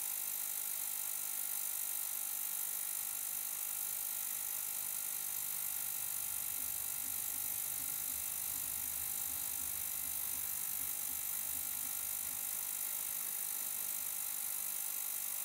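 GT Sonic 750 ml ultrasonic cleaner running mid-cycle with its lid closed: a steady high buzz and hiss with several fixed tones, unchanging throughout.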